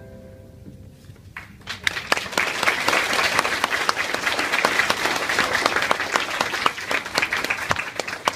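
The last guitar chord fades out, and about one and a half seconds in an audience breaks into steady applause of many hands clapping.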